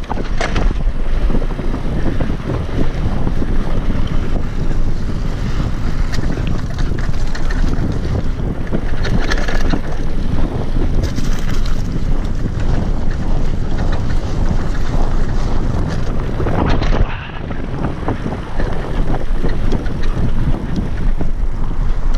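Wind buffeting the microphone of a mountain biker on the move: a loud, steady rush of air heaviest in the bass, with a short lull about three-quarters of the way through.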